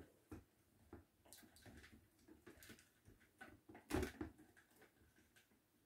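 Faint clicks and taps of a ring light and its tripod stand being handled and fitted together, with one louder knock about four seconds in.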